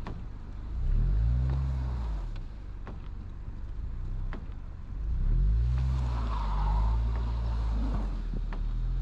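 Car engine revving in surges, about a second in and again from about five seconds in, as the driver tries to drive a car stuck in deep snow out; a higher whine from the spinning wheels joins around six seconds in. A few sharp clicks sound in between.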